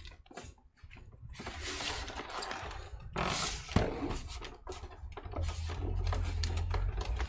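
A small desktop computer's case being handled while someone works out how to open it: rubbing, scraping and light clicks of the case and its panel. A low rumble comes in about five seconds in.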